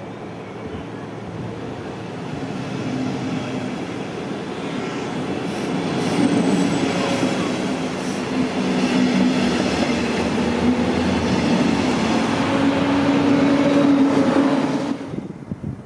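A train passing close by: rolling wheel and rail noise with a steady hum, growing louder over the first several seconds and then staying loud. It cuts off suddenly shortly before the end.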